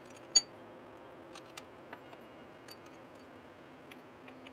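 Steel clamping hardware being handled and fitted by hand on a machine table: one sharp metal click about a third of a second in, then scattered softer clicks and ticks.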